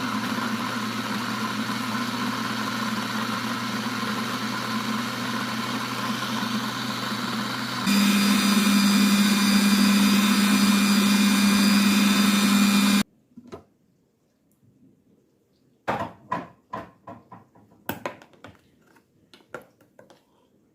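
Electric blender motor running steadily, switched up to a higher, louder speed about eight seconds in, then switched off abruptly about five seconds later. A few light clicks and knocks follow.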